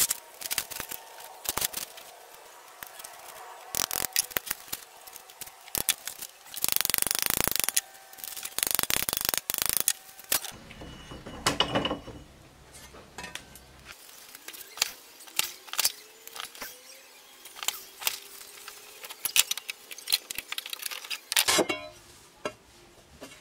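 Thin rusty steel plate being handled on a metal workbench and vise: scattered clinks and knocks of the sheet, with two longer stretches of scraping on the metal about seven and nine seconds in.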